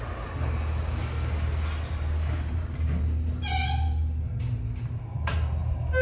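Steady low hum inside a Schindler 330A hydraulic elevator car as it travels down. About three and a half seconds in there is a short squeak as the plastic service-cabinet door swings, a sharp click near the five-second mark as it shuts, and a brief beep-like tone right at the end.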